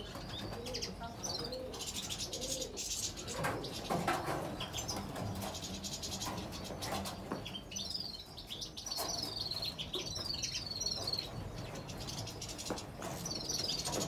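A mixed flock of caged finches, European goldfinches, greenfinches and canaries among them, twittering and chirping over one another in quick repeated phrases. Wings flutter as birds flit between perches.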